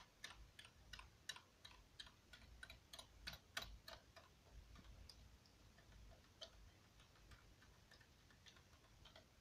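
Faint clicks of typewriter keys being tapped lightly, about three a second at first, thinning out to occasional single clicks after about four seconds.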